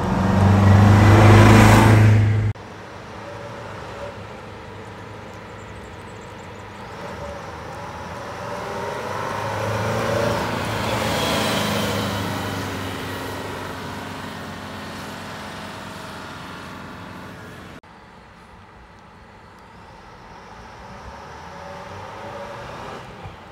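Vintage MCI highway coaches' diesel engines as the coaches drive past. A loud close pass comes first and cuts off sharply after about two and a half seconds. Then a coach passes and pulls away, rising to a peak about eleven seconds in and fading. After another sudden cut, coaches approach near the end.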